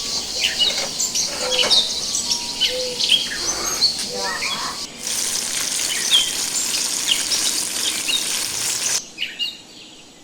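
Chicken pieces frying in hot oil in a kazan cauldron: a steady sizzle that breaks off briefly about five seconds in and stops suddenly about nine seconds in. Birds chirp over it throughout.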